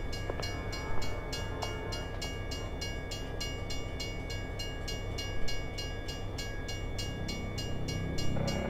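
Stopped diesel freight train idling: a steady low rumble with a steady high hum over it, the rumble swelling near the end.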